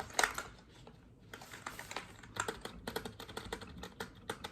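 Keys of a new RGB computer keyboard being typed on: a quick, irregular run of key clicks that grows denser about a second and a half in.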